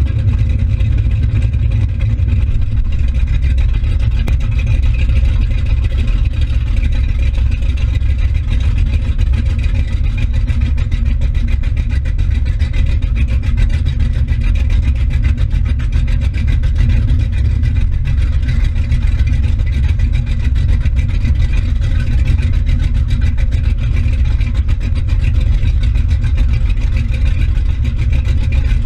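Motorboat engine running steadily and smoothly at speed, a loud, even low rumble, with water churning in the wake behind the stern.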